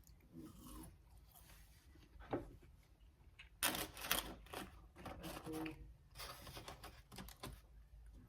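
Quiet eating noises: soft chewing and light rustling of food and wrapper, with a short louder rustle about three and a half seconds in.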